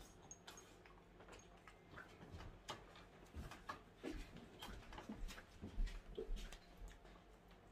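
Faint, scattered light clicks and taps at irregular intervals, a few of them sharper, with no steady sound underneath.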